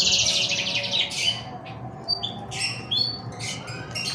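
Small birds chirping: a fast high-pitched trill at the start, then short separate chirps.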